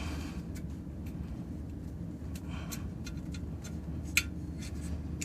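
Steady low hum of the vending machine's condenser fan running, with scattered light clicks and taps of test leads and clips being handled at the compressor, and one sharper click about four seconds in.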